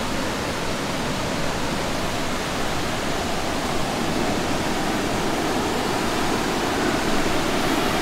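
Stream water rushing steadily, an even hiss without breaks.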